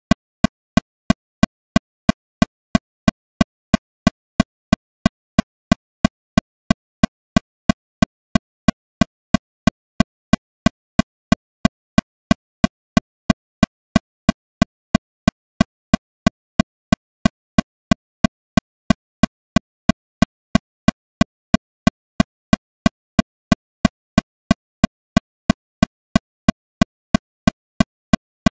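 Metronome clicking steadily at 182 beats per minute: about three short, sharp clicks a second, evenly spaced, with silence between.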